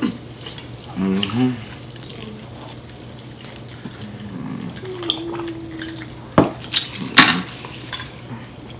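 Two sharp clinks of tableware, about a second apart, near the end, with short pitched vocal sounds earlier on.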